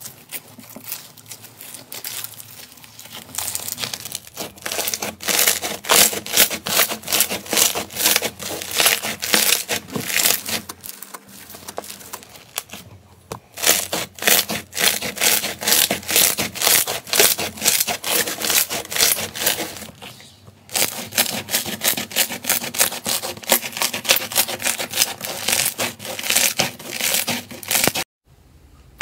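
Crunchy, grainy slime being squeezed and pressed by hand, giving a dense crackling and popping. It breaks off briefly twice and stops shortly before the end.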